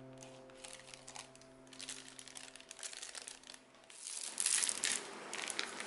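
Plastic piping bag crinkling and rustling in the hands as the coffee-topping paste is pushed into it, with a louder burst of crinkling about four seconds in. A held note of background music fades out over the first few seconds.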